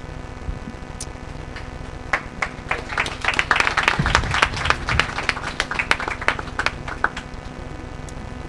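A small audience applauding with hand claps. The clapping starts about two seconds in, is densest in the middle and thins out near the end.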